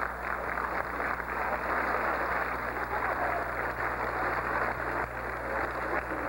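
Audience applauding, a steady dense patter of many hands clapping, with a low steady hum underneath.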